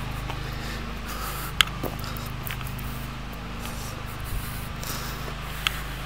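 Steady background hiss with a low hum, picked up by a handheld camera being walked along, with a few sharp clicks, a loud one about one and a half seconds in and another near the end.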